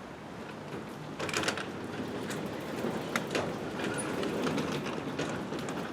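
Old wooden sectional garage door moved by hand, its rollers rumbling and clunking along the steel tracks, with scattered knocks. The clunky rollers and a door that sits crooked in its tracks from a settled building make it run rough.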